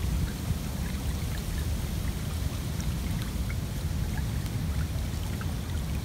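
A small stream trickling past logs and branches, under a louder low rumble of wind on the microphone.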